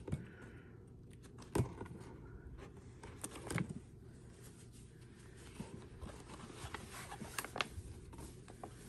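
Folded quilting fabric being handled and slid into the pockets of an accordion file folder: soft rustling and scraping with a few sharp clicks, the loudest about one and a half seconds in.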